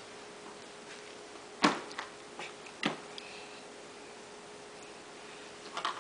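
A few short, sharp clicks, the loudest about a second and a half in and three smaller ones soon after, over a faint steady hum.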